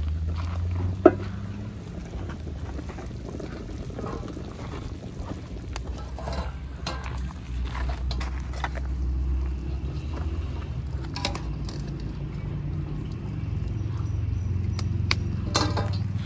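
A large aluminium pot of beef broth bubbling at a rolling boil, with a steady low rumble. A sharp metal knock comes about a second in, and scattered clinks follow later as a slotted steel ladle scrapes against the pot and a steel tray while the boiled beef is lifted out.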